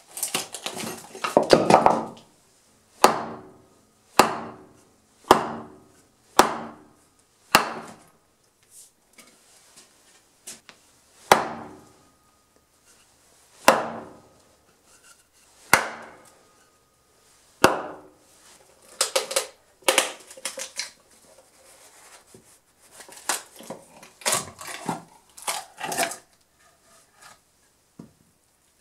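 Antique wrought-iron froe being driven into a spalted beech log with sharp blows, five about a second apart and then four more about two seconds apart, some leaving a faint brief ring. Bursts of cracking and creaking wood come at the start and again near the end, as the froe is levered and the split opens.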